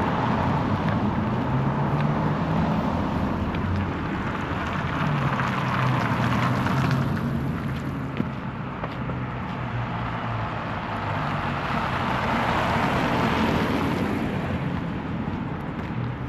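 City street traffic: steady road noise with the hum and tyre rush of cars passing. It swells twice, about seven seconds in and again about thirteen seconds in, as vehicles go by.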